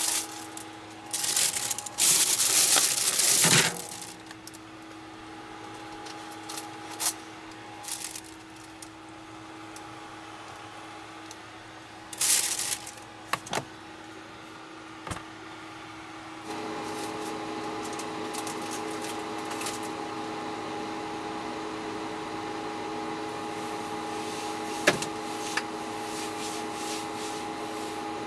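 Handling noises at a camper van's built-in Engel chest fridge: rustling and rubbing as the bread bag goes in and the lid is moved, then a few sharp clicks and knocks as the lids are shut. About halfway through, a steady mechanical hum comes on and keeps running.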